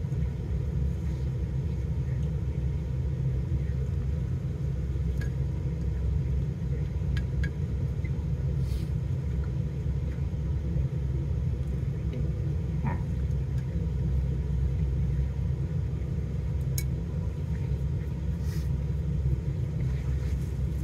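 Steady low rumble of an idling vehicle heard from inside its cabin, with a few faint light clicks and taps.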